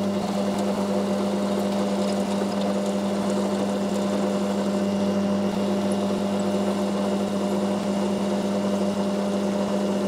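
Metal lathe running steadily with a constant hum, its tool turning down the end of a steel threaded lead screw to a bearing journal.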